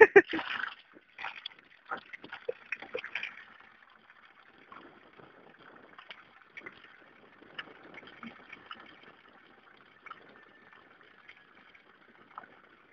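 A thin stream of water pouring from a tank spigot into a plastic bucket, splashing and filling it. Uneven and louder for the first few seconds, then a faint steady trickle.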